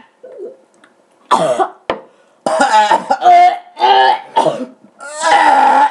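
Two people gagging, coughing and retching in disgust at the taste of a vomit-flavoured jelly bean, in a string of loud short bursts with a longer one near the end.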